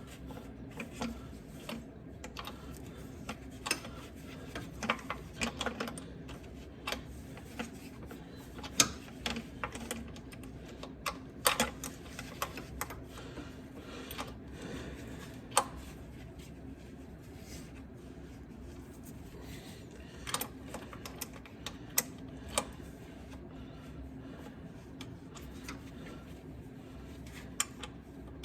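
Irregular clicks and metallic clinks of hand tools working a bolt under a car, over a steady low hum.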